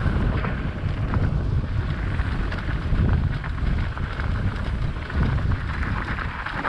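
Wind buffeting the microphone of a camera on a mountain bike riding over a rocky dirt trail, a steady low rumble with scattered small clicks and rattles from the tyres and bike.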